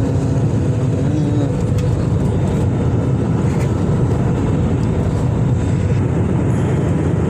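Steady, loud airliner cabin noise in flight, a constant rumble of engines and airflow heaviest in the low end.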